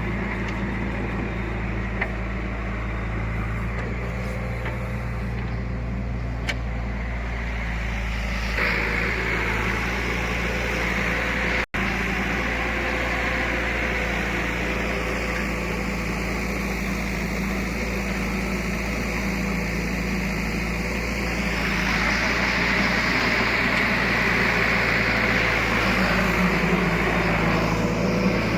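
Heavy diesel engines of a backhoe loader and tractors running steadily, louder about a third of the way in and again later as the machines work, with a split-second cut-out near the middle.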